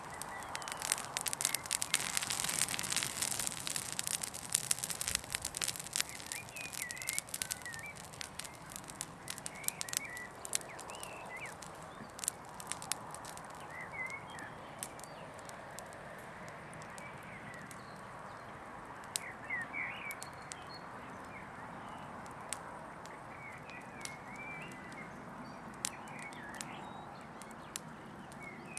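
A small fire of twigs and brush crackling as it burns down to embers. The pops come thick and fast for the first several seconds, then fewer. Small birds chirp now and then.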